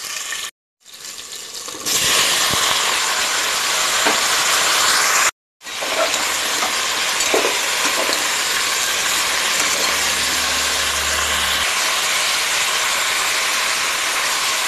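Hot oil sizzling hard in a pressure cooker as a spice tempering with green chillies and ginger fries and cut pumpkin and potato are stirred in with a spatula. A steady loud sizzle, broken by two abrupt cuts to silence, one about half a second in and one about five seconds in.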